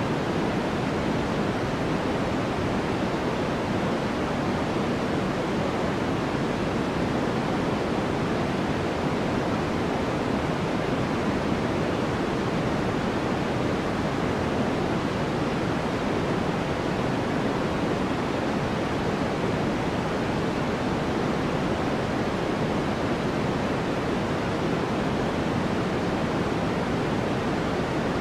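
Steady white-noise track: an even, unchanging hiss, fuller in the lower pitches than the higher ones, with no separate events.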